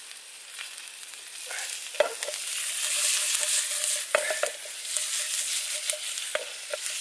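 Asparagus sizzling as it fries in a pan over a wood-fired stove. The sizzle swells louder about two seconds in and eases near the end, with a few sharp clicks and pops.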